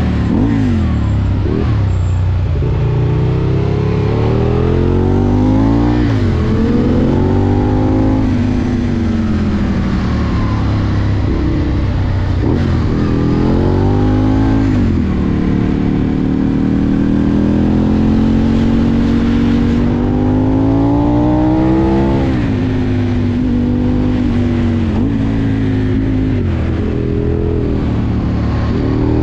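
Aprilia Tuono V2 motorcycle engine heard from on board while riding through bends, its pitch climbing again and again under acceleration and dropping sharply at each shift or when the throttle closes, over a steady rush of wind and road noise.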